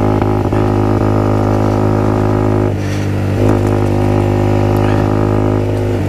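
Small 50cc motorcycle engine running at a steady, high speed under way on a dirt track. Its note dips briefly about three seconds in, then picks back up.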